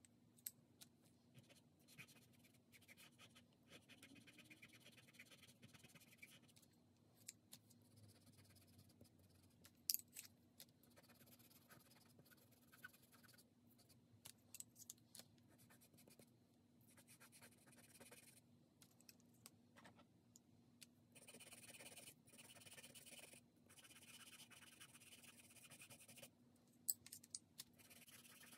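Faint, irregular scratching of a pastel pencil stroking over Pastelmat paper, with a few sharp clicks.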